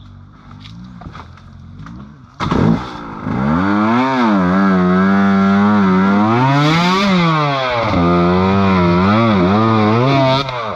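A small motorcycle engine revving hard, its pitch rising and falling over and over while held mostly at high revs. It starts with a sudden loud burst about two and a half seconds in and drops away near the end.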